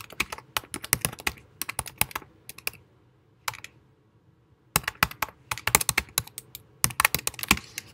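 Typing on a computer keyboard: a quick run of keystrokes, a pause of about two seconds in the middle with a single stray key, then another quick run of keystrokes.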